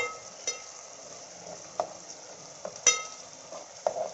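A metal spoon stirring and clinking against a metal pot as chopped onions, tomatoes and green chillies fry in oil, over a steady sizzle. About five clinks, the loudest one ringing about three seconds in.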